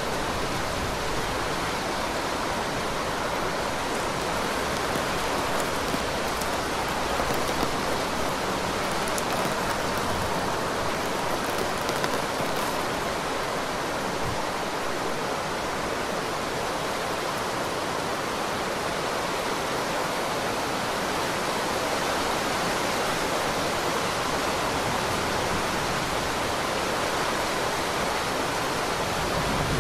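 Heavy rain falling in a steady, dense hiss that does not let up.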